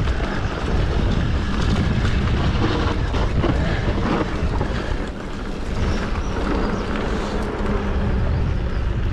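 Mountain bike rolling down a rough dirt and stone track: tyre noise with the bike rattling and clicking over bumps, and wind rumbling on the microphone.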